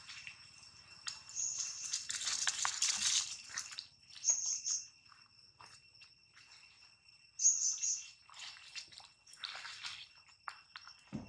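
Baby long-tailed macaque giving high-pitched squealing cries in several short outbursts, over a steady high insect drone. A low dull thump comes near the end.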